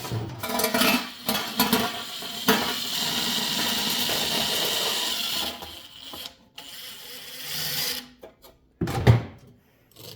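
Small power driver running steadily for about three seconds while driving a screw into the fan's blade hub, after a stretch of clicks and rattles from the metal parts being handled. It stops suddenly, and one loud knock comes near the end.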